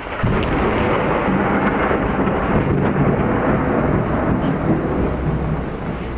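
Heavy storm rain pouring down: a loud, steady rush that comes on suddenly just after the start.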